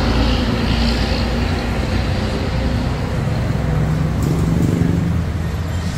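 Steady road traffic from a busy multi-lane road, a constant rumble of engines and tyres, with one vehicle growing louder about four to five seconds in.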